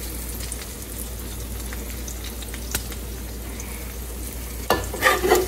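Chopped ground beef and onions sizzling steadily in a frying pan, with a few faint clicks. Several louder knocks or scrapes from the spatula come near the end.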